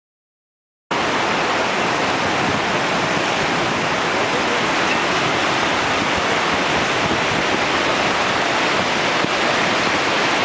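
Rough surf breaking on a sandy beach, a steady, even hiss that cuts in suddenly about a second in.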